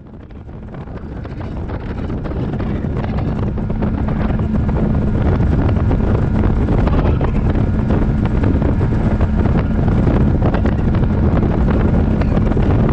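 Boat running at speed across the water, a motor's steady drone under heavy wind buffeting the microphone. It fades up over the first few seconds, then holds steady.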